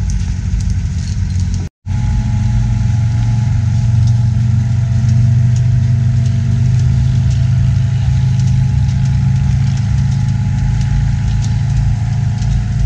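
An engine running steadily with a low, even drone, with a momentary gap in the sound a little under two seconds in.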